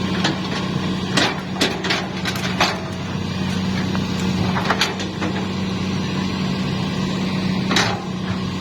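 Hitachi hydraulic excavator's diesel engine running steadily at a constant pitch, with sharp metallic clanks and knocks now and then from the bucket and linkage as it digs soil.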